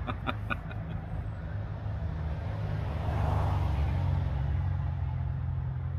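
Road traffic from a nearby road: a steady low rumble, with a vehicle passing and swelling loudest about three seconds in.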